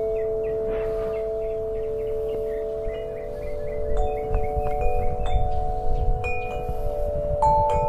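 Wind chimes ringing: several long tones of different pitches hold and overlap, with new strikes added every second or so and a brighter, louder note coming in near the end, over a low rumble.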